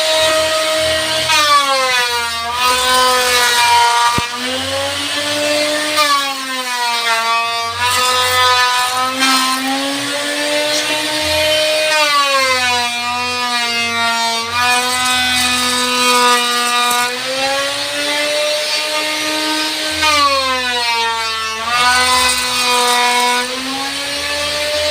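Electric woodworking power tool running and cutting wood, its motor pitch dipping several times as it takes the load and then recovering.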